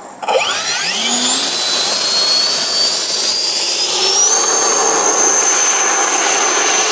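Radio-controlled Viper Jet model's engine spooling up to full power for takeoff. Its loud whine rises in pitch over about four seconds, then holds steady as the model accelerates down the runway.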